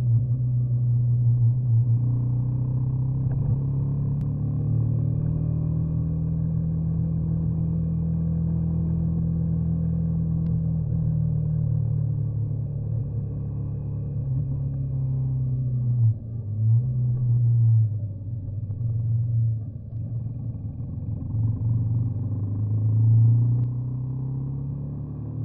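Motorcycle or scooter on the move: a loud, continuous low rumble of its running engine and the ride, with the pitch drifting up and down as the throttle changes. From about two-thirds in the sound grows uneven, swelling and dropping several times.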